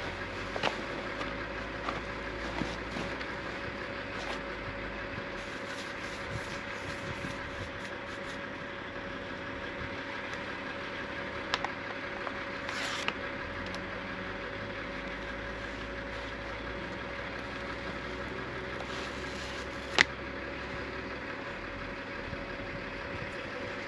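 An engine running steadily at idle, with a few sharp clicks over it, the loudest about 20 seconds in.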